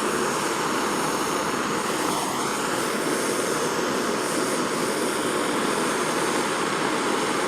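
Jeweller's gas soldering torch burning with a steady, even rushing hiss while it heats a silver setting to run the solder.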